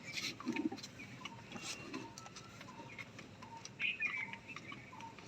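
Small birds chirping intermittently, with scattered light clicks and taps.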